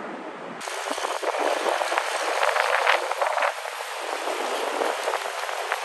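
A tractor-trailer hauling a shipping container passes close by: a steady hiss of tyres on the road with rattles and clanks from the container and chassis. It starts abruptly less than a second in and is loudest around two to three and a half seconds in.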